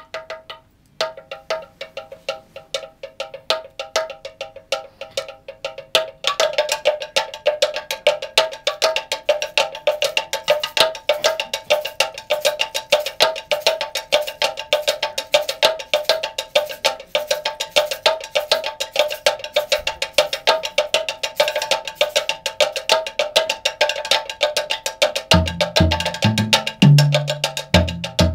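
Wooden slit drum (a hollowed log with slots) struck rapidly with sticks, a fast stream of pitched wooden knocks. About six seconds in more players join and the rhythm gets denser and louder. Near the end, deeper drum tones come in underneath.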